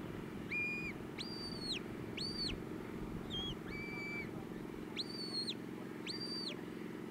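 Sheepdog handler's whistle commands: a run of short, steady whistle blasts, some lower and some higher with a quick rise and fall at each end, directing a working sheepdog driving sheep. A steady low hum lies underneath.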